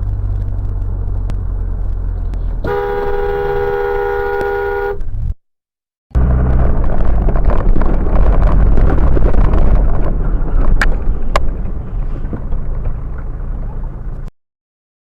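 Steady low road and engine rumble as heard from a car, with a car horn sounding one held blast for about two seconds. After a short break, a louder stretch of heavy rumble and rushing noise follows, with two sharp clicks near the end.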